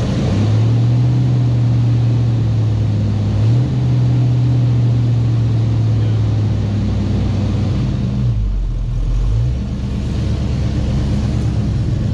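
Swapped-in 5.0 V8 of a 1985 Ford Mustang LX idling through its exhaust just after starting, not yet fully warm. The idle sags briefly about eight seconds in, then picks back up.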